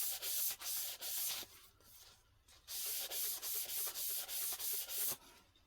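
Paper towel wiped back and forth along the rails of a Yonex Precision 8.0 stringing machine, in repeated hissing rubbing strokes, with a pause about one and a half seconds in before the wiping resumes. The towel is damp with 5-56 lubricant.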